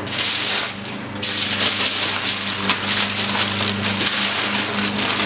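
Aluminium foil crinkling and crackling as it is handled and folded into a wrap, a dense run of small crackles that goes on throughout.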